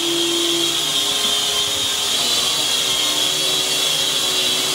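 Cheerson CX-33S tricopter in flight, its small motors and propellers giving a steady high-pitched whine with a lower hum beneath.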